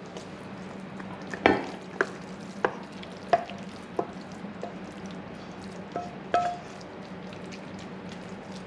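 Wooden spatula scraping rice out of a frying pan into a glass baking dish, knocking against the pan and dish about ten times at irregular intervals, a few knocks with a brief ring.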